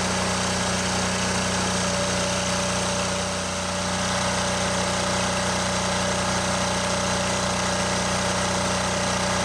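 Micro Thaw portable microwave thawing machine running steadily while it thaws ice in a frozen valve box: a constant engine-like hum that dips slightly about three and a half seconds in.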